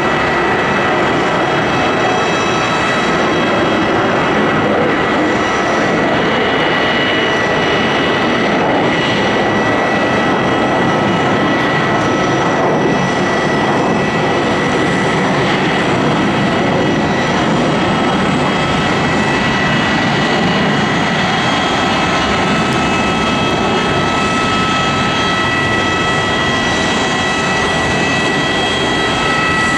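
The twin jet engines of an Airbus A330-200 running at low taxi power as it taxis past. There is a steady rush of engine noise with a high whine held on several steady tones.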